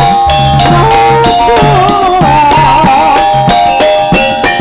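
Javanese folk dance music accompanying the Emblek dance: regular hand-drum strokes under a wavering melody line and sustained held notes.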